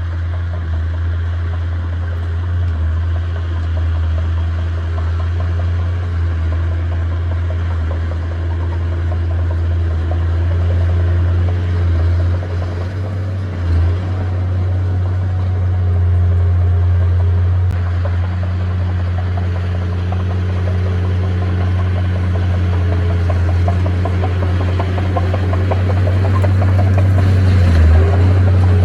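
Diesel engine of heavy earthmoving machinery running steadily with a deep, even hum, growing a little louder near the end.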